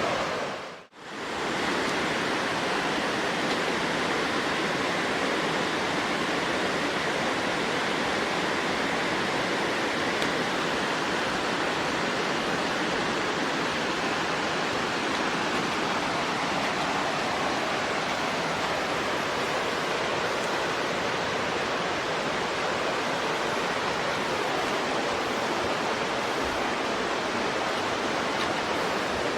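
Steady rush of flowing water, an even hiss that dips out briefly about a second in and then carries on unchanged.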